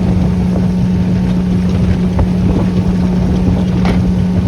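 An engine running steadily at one unchanging pitch, with a rushing noise over it.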